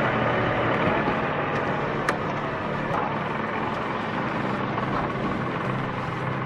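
Excavator's diesel engine and hydraulics working steadily under load, with a sharp crack about two seconds in.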